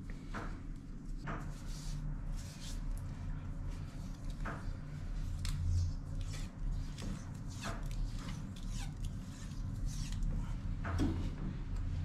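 Cord being handled and wound around a steel propeller shaft: brief scratchy rubbing strokes at irregular intervals, about one a second, over a steady low hum.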